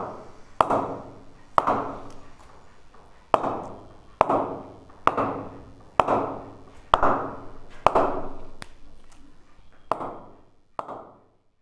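Leather cricket ball bounced again and again off the face of a Kashmir willow tennis-ball cricket bat: a sharp knock with a short ringing tail, about once a second, a dozen times, the last few weaker. The crisp rebound is the bat's 'punch', which the maker calls very good.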